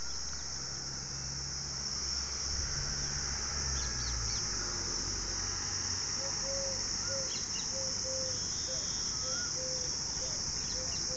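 A steady high-pitched insect chorus, with scattered short bird chirps and calls over it. From about halfway a short low note repeats steadily.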